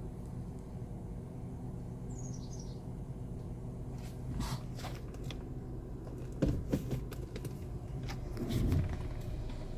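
VW Passat idling with a steady low hum, with a few irregular knocks and taps between about four and nine seconds in: a strange noise from the right side that the owner cannot identify. A bird chirps briefly about two seconds in.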